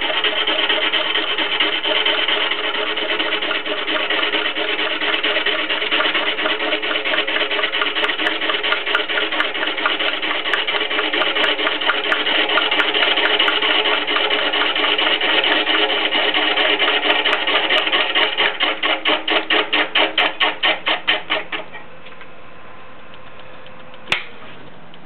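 Gouge cutting into a large bark-covered log spinning on a wood lathe: a steady, rough shaving noise. Near the end it breaks into an even pulse, about four a second, as the tool catches the out-of-round blank, then stops. The lathe's quieter hum remains, and one sharp click sounds a couple of seconds later.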